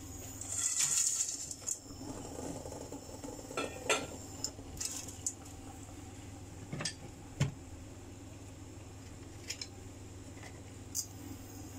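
Pans and utensils being handled: scattered light clinks and knocks, with a brief rustling scrape about a second in, over a low steady hum.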